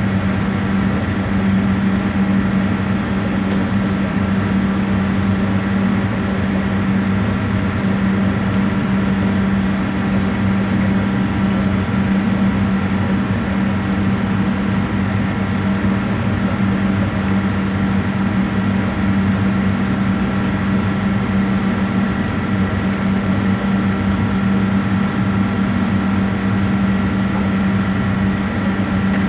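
A steady mechanical hum with a strong low tone and fainter higher tones, unchanging throughout.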